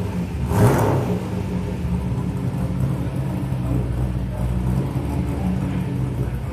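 Holden ute's LS1 5.7-litre V8 idling through a straight 2.25-inch exhaust, with one short throttle blip about half a second in before it settles back to a steady idle.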